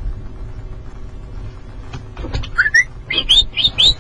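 Patrol car driving, with a steady low engine and road rumble. About two seconds in, a quick run of short high-pitched chirps starts, several a second.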